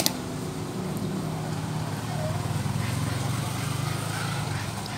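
A single sharp clink of a metal spoon or fork against a plate right at the start, over a steady low mechanical hum like an engine running.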